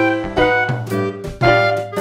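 Background music: an upbeat jazz tune with horns, notes in short phrases.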